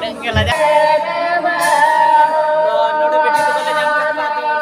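A man singing unaccompanied, holding long, steady notes.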